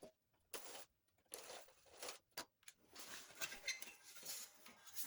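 Faint, scattered scraping, rustling and clicking of small metal parts being handled and worked loose by hand.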